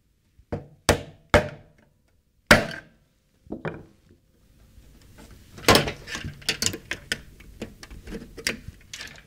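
A hammer striking a screwdriver held against the conduit knockout in the sheet-metal housing of an LED light fixture: about five sharp blows over the first four seconds, the loudest about two and a half seconds in, as the knockout is driven out. Then a quick run of lighter clicks and rattles as the fixture is handled.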